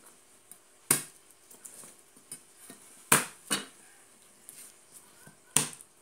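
Garlic cloves being crushed on a wooden chopping board: four sharp knocks, the second and third close together, with faint small clicks between them.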